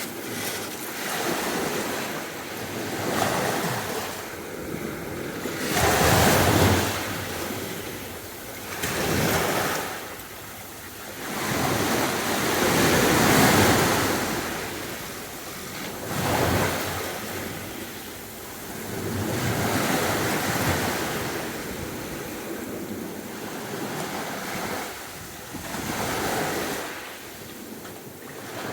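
Sea waves breaking on a beach, the wash rising and falling in uneven surges every few seconds, the loudest about six seconds in.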